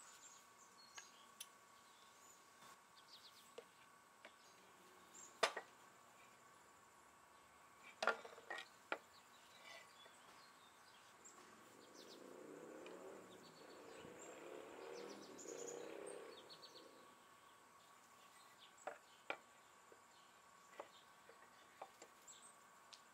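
Near silence: faint outdoor background with a few scattered light knocks of wooden cabinet panels being handled on a workbench, and some faint high chirps. About halfway through, a soft rushing sound swells and fades over several seconds.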